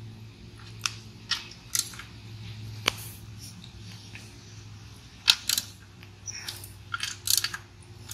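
Scattered light clicks and ticks of hand tools as the screws on a small mower engine's gasketed cover are snugged down by hand, a half turn at a time. A steady low hum runs underneath.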